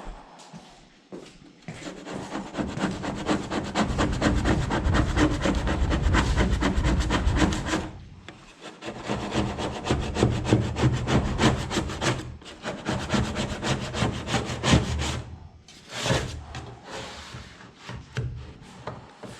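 Rapid scraping strokes of a tool working paint off an aluminum boat hull, in two long runs with a short pause about eight seconds in, then a few shorter bursts.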